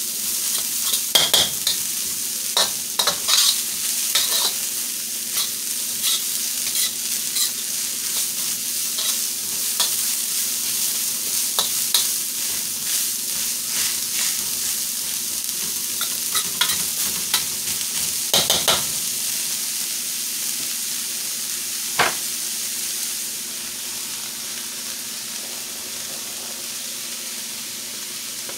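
Chopped cabbage sizzling in a hot steel wok while a spatula stirs and scrapes it around the pan, with frequent short scrapes over the steady frying hiss. A single sharp tap comes about two-thirds of the way through, after which the stirring stops and the sizzle carries on a little softer.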